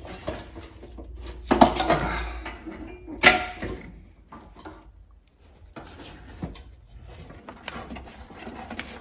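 Metal tractor parts and hand tools clinking and clanking during reassembly, with two louder clanks a second or two apart in the first few seconds, then lighter scattered rattles and clicks.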